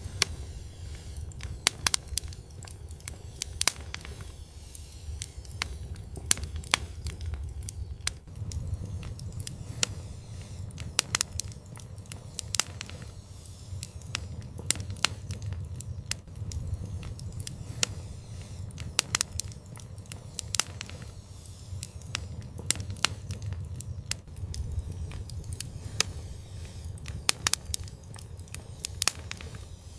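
Fire in an outdoor fireplace crackling, with sharp irregular pops and snaps over a low steady rumble of burning.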